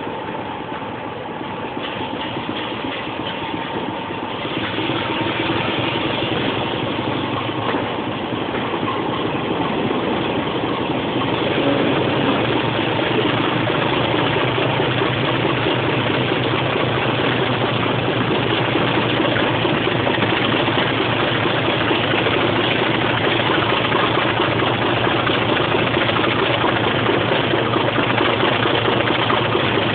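Class 25 diesel locomotive's Sulzer six-cylinder engine running under load as the train moves, heard close beside the locomotive. It gets louder about 4 seconds in and again about 12 seconds in, then holds steady.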